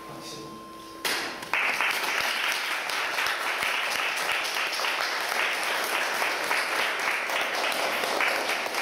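Audience applauding, breaking out suddenly about a second in and growing fuller half a second later. Just before it, a faint steady tone cuts off.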